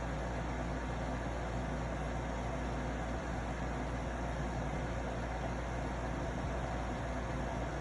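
Arctic King 8,000 BTU air conditioner running, with a steady low buzz from its compressor under the even rush of the fan. The owner takes the buzz for a defective or mishandled compressor.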